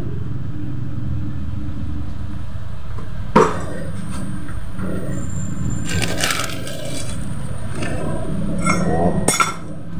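Small steel parts, a removed CVT pulley bearing, a circlip and a drift pin, set down and clinking against a steel anvil block: one sharp clink about three seconds in, a short rattle a few seconds later and a few more clinks near the end, over a steady low hum.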